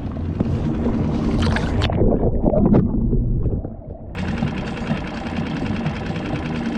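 Water sloshing and splashing with handling noise as a just-caught spotted bay bass is let go over the side of a small boat, the sound muffled for a couple of seconds in the middle. From about four seconds in a steady, evenly pulsing whir takes over.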